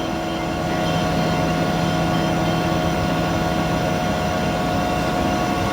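Machine tool running through a finishing pass, a steady mechanical hum of several tones, a little louder from about a second in.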